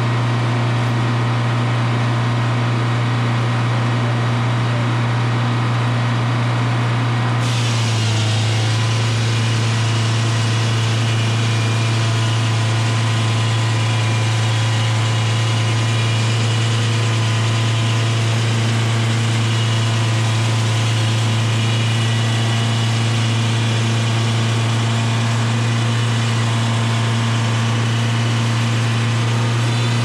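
Supercharged Detroit Diesel 4-71 two-stroke four-cylinder diesel running steadily under governor, driving a Frick circular sawmill blade. About seven seconds in, its note drops slightly and the higher sound changes as the blade takes load cutting a board off the log, then it holds steady.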